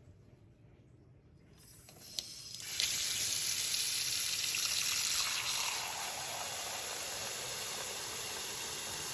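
Kitchen tap water running into a metal saucepan in a stainless-steel sink, splashing over eggs as the pot fills. A click about two seconds in, then the water starts and runs steadily, a little quieter and lower after about six seconds.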